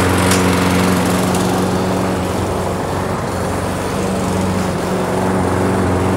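Lawn mower engine running steadily while cutting grass, with an even low hum.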